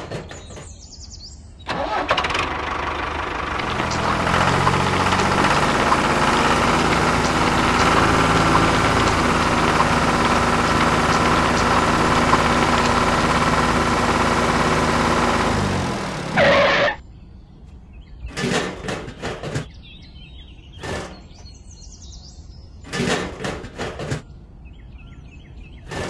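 Diesel tractor engine starting about two seconds in, running steadily and a little louder after a couple of seconds, then stopping at about sixteen seconds. Several short knocks follow.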